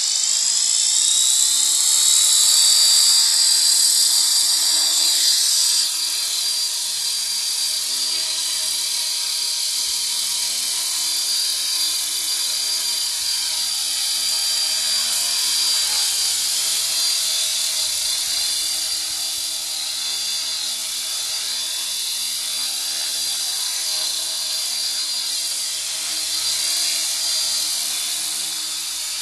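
T-Rex radio-controlled model helicopter spooling up: its motor and rotor whine rises in pitch over the first two or three seconds, then settles into a steady high whine with rotor buzz as it lifts off into a low hover.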